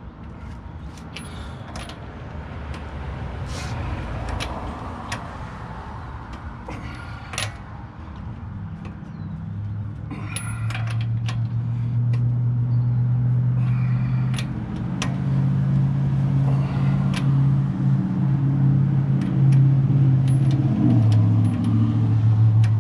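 A vehicle engine running steadily, growing louder from partway in, with a slight change in pitch near the end. Scattered light metallic clicks and clinks run throughout.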